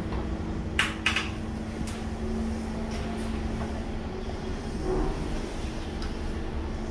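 Steady low hum and rumble, broken about a second in by two quick clicks from the bathroom door's handle and latch.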